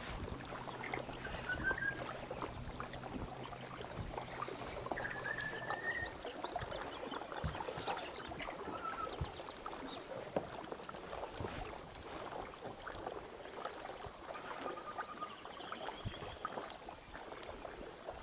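Water lapping against a small boat's hull, with scattered small knocks and clicks. A low steady hum runs from the start and stops about six seconds in, and a few short high chirps come and go.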